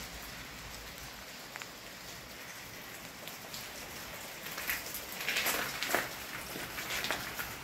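Rain falling and pattering on wet ground and debris: a steady hiss with scattered drip ticks, turning to louder irregular crackles and clicks over the second half.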